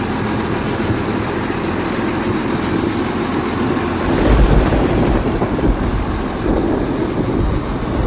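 High-pressure water jetting (aqua milling) equipment running as it cleans 4-inch pipes: a loud, steady rushing noise from the pump and water jet. Heavier low rumbling comes in about four seconds in.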